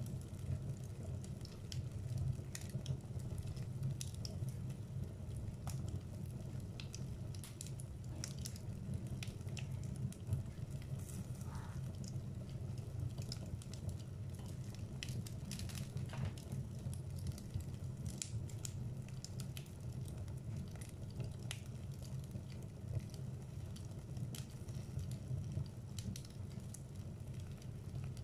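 Wood fire burning in a fireplace: a steady low rumble of flame with frequent sharp crackles and pops from the burning logs.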